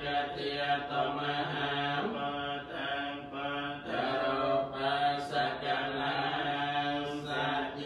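Theravada Buddhist monks chanting in a steady, drawn-out monotone, with short breaks for breath.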